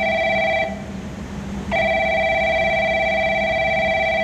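Electronic train-approach warning bell ringing from the platform loudspeakers, signalling that a train is coming in. There are two long rings: the first stops under a second in, and the next starts about a second later.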